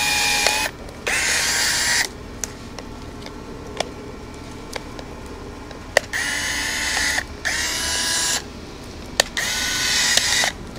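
Small cordless power pruning tool whirring in five bursts of about a second each as it cuts dry limbs, with a few sharp clicks between the bursts.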